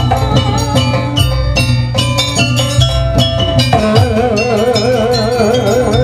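Live Javanese jaranan gamelan accompaniment: hand drums and struck metal percussion keep a steady, busy beat. About four seconds in, a held, wavering melody line comes in over the percussion.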